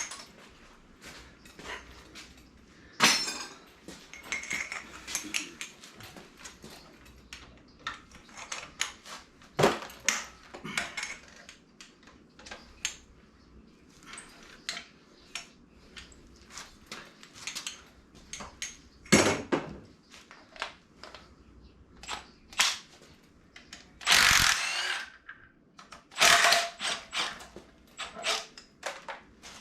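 Hand tools working bolts on a 5.3 LS engine: irregular metal clicks, clinks and knocks of a ratchet and wrenches. Two longer, louder bursts of noise come near the end.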